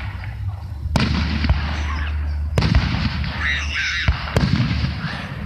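Aerial fireworks shells bursting: three sharp bangs, about a second in, near the middle and again near the end, with a spell of crackling in between, over a steady low hum.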